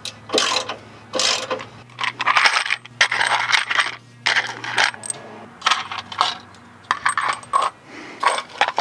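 Steel bolts and washers clinking and rattling as they are dropped into a small bowl: a string of sharp metallic clinks, about a dozen scattered over several seconds.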